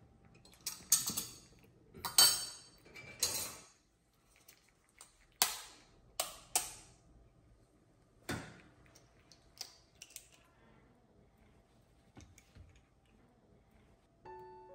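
Rustling as floury hands are brushed together, then a series of sharp taps and clicks as an egg is cracked on a ceramic bowl and its shell pulled apart. Music starts right at the end.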